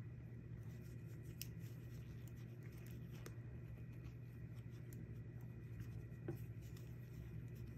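Knitting needles clicking faintly now and then while purl stitches are worked, with light rubbing of yarn, over a steady low hum.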